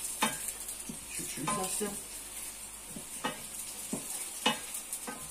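Chopped garlic sizzling in hot olive oil in a frying pan, with a steady high hiss, while a wooden spatula stirs it, scraping and tapping against the pan about five times.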